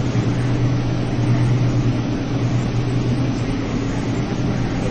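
Anyang horizontal CNC radial-axial ring rolling machine running as it rolls a red-hot ring: a steady low hum of constant pitch under a broad hiss.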